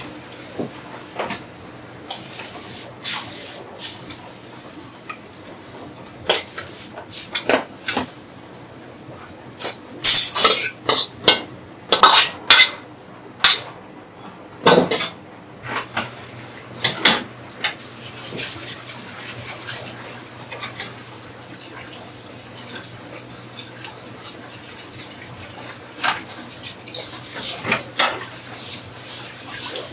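Metal ladle clanking against a wok and pans while fried rice is cooked: scattered sharp clanks, with a quick loud run about ten to thirteen seconds in and a few more near the end, over a steady low hum.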